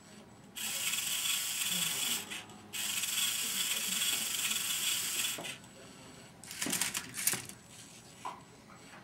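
Electric motors and plastic gears of a LEGO Rubik's Cube solving robot whirring in two runs of about two seconds each, which start and stop sharply, followed by a few plastic clicks and knocks.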